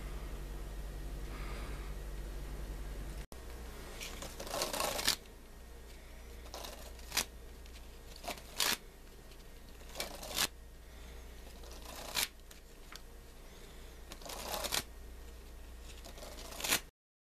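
A deck of playing cards being shuffled by hand, in short rustling bursts every second or two, with a longer stretch about a second in after a cut and another near the end. Before that, a steady low hum for the first few seconds.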